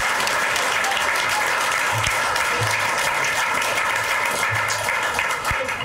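A roomful of people applauding, the clapping easing off near the end.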